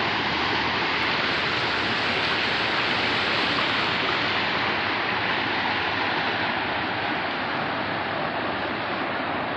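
Minnehaha Falls pouring: a steady, even rush of falling water.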